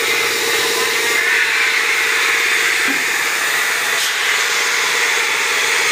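Small plastic blow-moulding machine running: a steady hum with a hiss, the hiss growing stronger about a second in.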